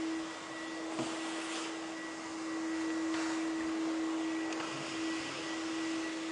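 Vacuum cleaner running steadily with a constant hum, a small knock about a second in and a few brief swishes.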